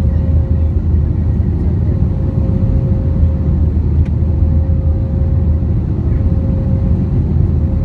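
Steady low roar inside the cabin of an Airbus A321-231 climbing out after takeoff: its IAE V2500 turbofan engines and the rush of air along the fuselage, heard from a seat by the wing. A faint steady hum rides on top of the roar.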